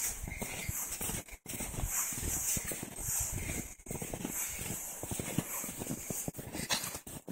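Footsteps crunching through deep snow at a walking pace.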